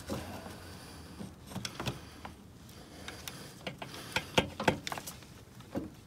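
Gloved hands pushing a small rubber air hose onto the throttle body and handling plastic sensor connectors: light rubbing and scattered sharp clicks, the loudest a pair of clicks a little past the middle. The engine is not running.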